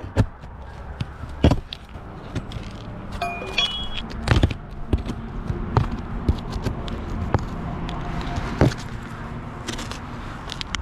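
Irregular knocks, taps and clatter of hand work, with a brief high tone about three and a half seconds in.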